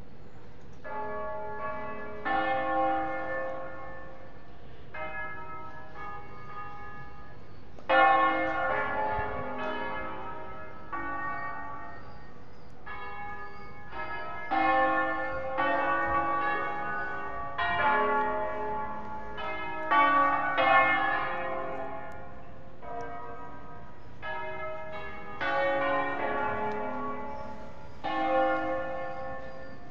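The seven church bells of Cremona Cathedral, a concerto tuned in A-flat major, ringing together in groups of overlapping strikes that hum on after each blow, with short lulls between the groups. It is a festive peal, rung to call people to the start of a service.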